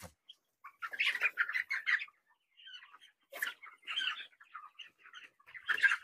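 A flock of white broiler chickens calling in scattered short calls, several birds overlapping at once, with brief gaps between.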